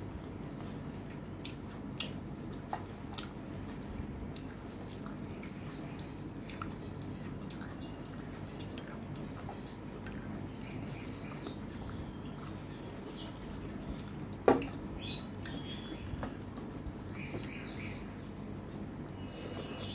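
Close-miked chewing and wet mouth sounds of someone eating rice and mutton curry, with soft clicks from fingers working the food on a metal plate, over a steady low hum. One sharp click, much louder than the rest, comes about two-thirds of the way in.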